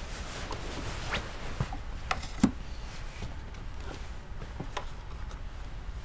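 Bedclothes rustling and a few light taps and knocks as things are handled on a bedside shelf, the loudest knock about two and a half seconds in.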